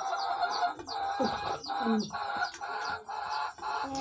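Chickens clucking in the background, with small birds chirping quickly and repeatedly over them.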